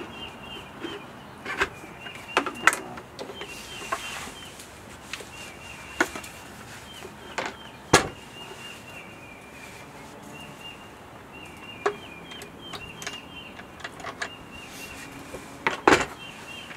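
Scattered clicks and knocks of a router and its fixed base being handled and fitted to an aluminum router table, the loudest about eight seconds in. A small bird chirps repeatedly behind them.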